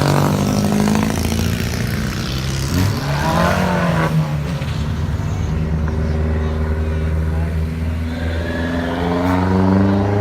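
A race-prepared car's engine revving hard and changing gear, its pitch climbing and dropping with each shift and rising again near the end.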